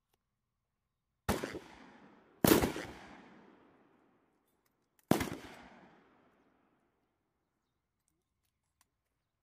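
M240B 7.62 mm machine gun firing three short bursts of a few rounds each: about a second in, again a second later, and once more about five seconds in. Each burst is followed by a long fading echo.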